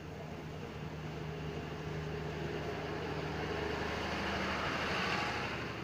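Special express passenger train of stainless-steel coaches rolling past along the platform, over a steady low hum. The running noise swells as the last car goes by about five seconds in, then starts to fade as the train moves off.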